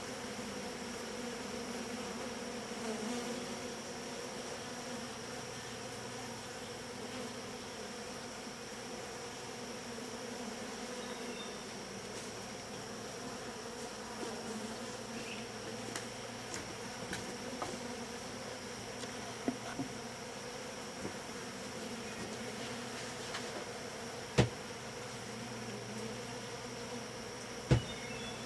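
Honeybees from an open hive buzzing in a steady hum. A few sharp knocks break in, the two loudest near the end.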